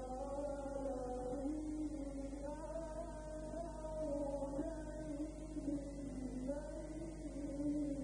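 A male Quran reciter chanting in the melodic tajweed style, holding long notes that waver and bend slowly in pitch. A steady low hum runs underneath.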